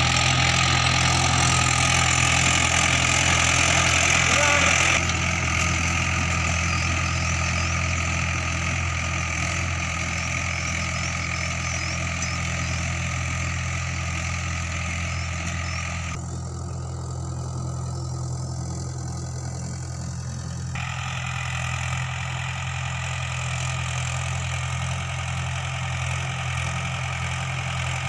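Mahindra 575 DI tractor's four-cylinder diesel engine running steadily while it drives a rotavator through the soil. The sound changes abruptly three times: about five seconds in, about sixteen seconds in, and about twenty-one seconds in.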